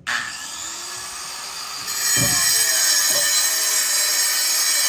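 Handheld angle grinder with a cutting disc running, then cutting into a concrete block with a harsh, high grinding screech that gets louder about two seconds in as the disc bites.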